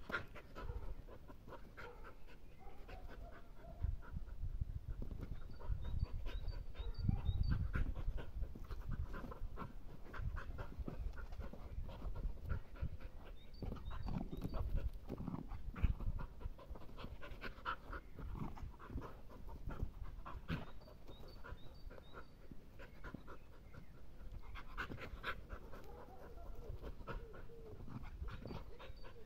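Mixed-breed dog panting hard as it runs and leaps for a ball, with irregular scuffs and thuds of movement on grass.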